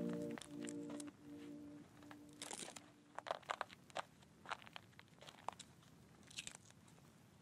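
Background music fading out over the first two or three seconds. After that come faint, irregular clicks and crackles.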